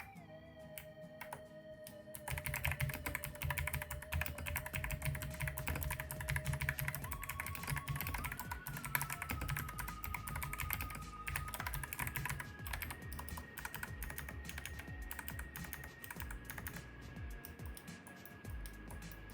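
Typing on Kailh Box Navy clicky switches in an Ajazz AK650 mechanical keyboard: a fast run of crisp clicks from the heavy 85 g switches' metal click bars, starting about two seconds in and thinning out near the end. Quiet background music with long held tones plays underneath.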